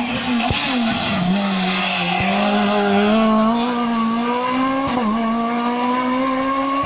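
Rally car's engine running hard at high revs: the note drops about a second in, then climbs slowly and steadily as the car accelerates away uphill out of a hairpin.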